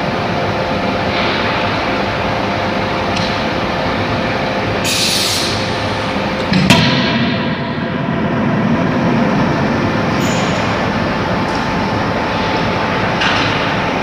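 CNC fully hydraulic die forging hammer working a hot workpiece: a steady machine hum, a short burst of hiss about five seconds in, then one sharp, heavy blow about halfway through that rings briefly.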